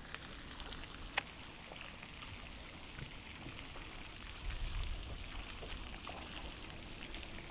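Small waves lapping quietly against a boat's hull. A single sharp click comes about a second in, and a low wind rumble on the microphone about four and a half seconds in.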